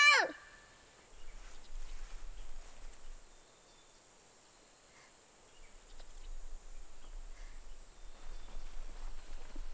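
Quiet outdoor ambience: soft irregular rustling with a low rumble that comes in two stretches, and a few faint chirps and ticks. At the very start a loud, drawn-out animal-like cry cuts off.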